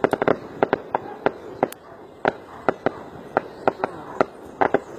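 A string of firecrackers going off: sharp cracks at irregular intervals, bunched tightly at the start and then coming about three or four a second.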